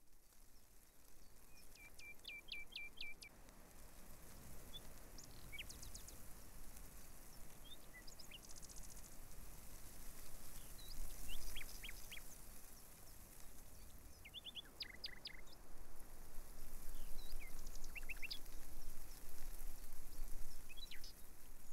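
Small birds chirping and trilling in short runs of quick, high notes every few seconds, over a steady background hiss and low rumble.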